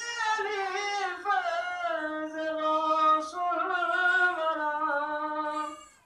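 A single voice singing long held notes with wavering, gliding ornaments, unaccompanied. It fades out near the end.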